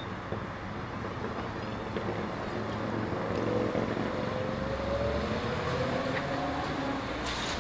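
Street traffic heard from high above, with a motor whine that rises slowly in pitch over a few seconds, like a vehicle pulling away. A short hiss comes near the end.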